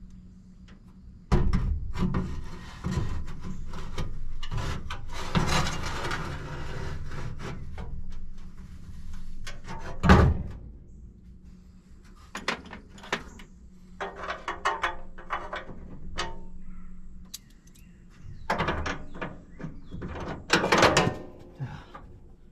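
Work-bay clatter: a run of knocks, thuds and rattles as tools and parts are handled, with a sharp knock about ten seconds in and bursts of rattling near the end.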